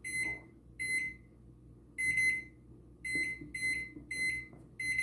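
Microwave oven keypad beeping as its buttons are pressed to set the cooking time: about eight short, high single beeps, spaced irregularly and coming faster in the second half.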